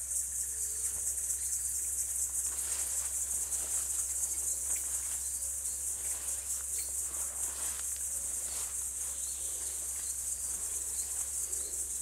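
Dense, steady high-pitched insect chorus with a fine rapid pulse, with faint short bird chirps and soft rustling now and then.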